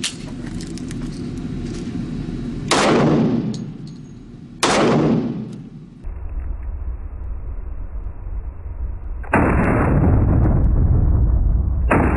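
Two shots from a Springfield XD-S .45 pistol firing .45 ACP tracer rounds, about two seconds apart, each ringing off with a short echo. Later comes a muffled, loud rush of noise that starts suddenly about nine seconds in and again near the end.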